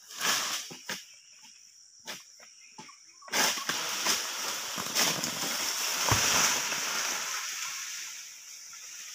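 Long-poled egrek sickle cutting at an oil palm crown: a few short sharp cracks, then from about three seconds in a long rustling crash as the cut material falls through the fronds, with a sharp thud about six seconds in as it hits the ground.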